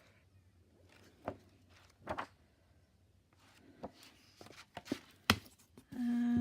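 Books being handled: scattered soft taps and page rustles, with a sharp knock about five seconds in.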